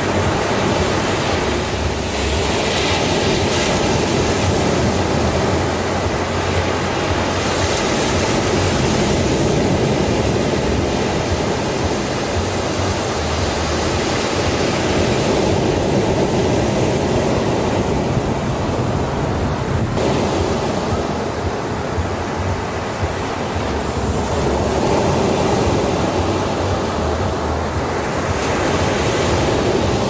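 Ocean surf breaking and washing up onto a sandy beach: a continuous rushing wash that swells and eases every several seconds as each wave comes in.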